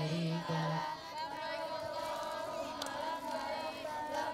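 Many children's voices chanting together, with a deeper held tone under them for the first second.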